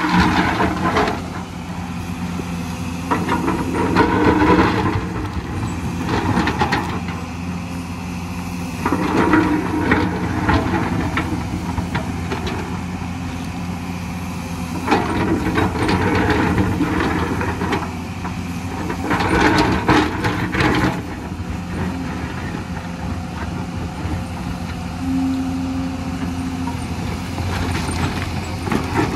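Hyundai crawler excavator's diesel engine running steadily, surging louder every few seconds for a second or two as the bucket digs and scrapes through rocky soil.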